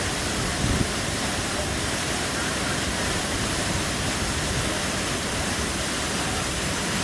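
Waterfall rushing as a steady, even roar of falling water, with a brief low thump just under a second in.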